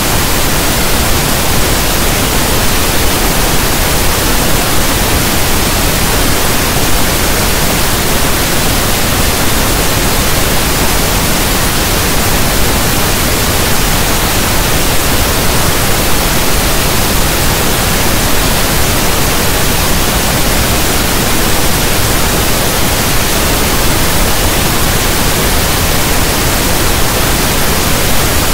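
Steady pink noise, a soft even static like a radio not tuned to a station, holding the same level throughout.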